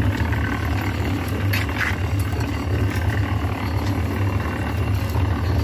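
Mobile concrete block-making machine running, its electric motor giving a steady low hum with machine noise above it.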